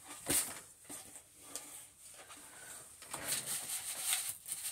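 Dry rice being scattered onto the floor for a vacuum mess test: scattered grains ticking at first, then a denser patter of grains from about three seconds in.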